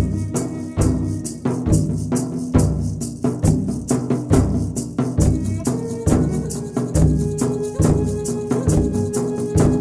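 Background music with a steady drum beat, a shaker rattling along and a bass line.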